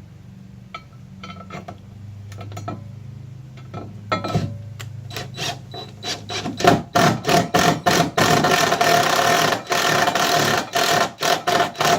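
A power drill driving a screw into the boat, run in quick repeated pulses with a steady whine from about six and a half seconds in, after a few seconds of knocks and clicks as the screw is set.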